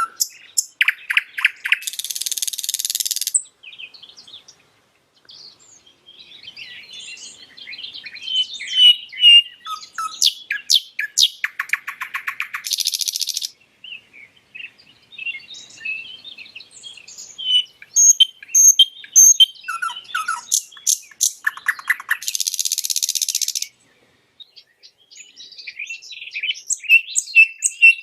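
Nightingale singing: a varied run of phrases made of rapid repeated clicking notes, quick trills, clear whistles and a few harsh, buzzy stretches, broken by short pauses.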